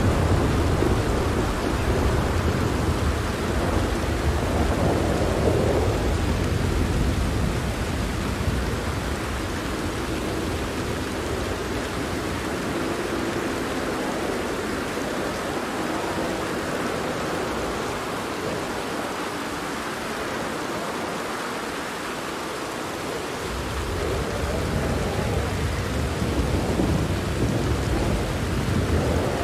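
Steady rain pattering on a tent with rolling thunder: a long low rumble that fades out about halfway through, and another that builds up again near the end.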